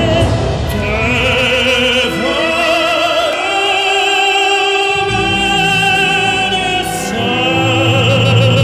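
Slow orchestral ballad music in an operatic style: a melody held in long notes with wide vibrato over sustained accompaniment.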